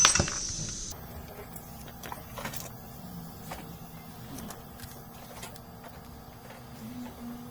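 Bench soldering work: a hiss, typical of flux sizzling under the soldering iron, that stops about a second in, then faint small clicks of tools over a steady low hum.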